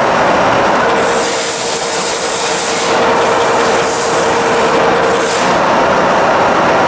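Lagun FTV-4 knee mill running under power, a steady mechanical whine from its gear-driven drive. A louder hissing rush comes in about a second in and lasts about two seconds, and returns briefly near the five-second mark.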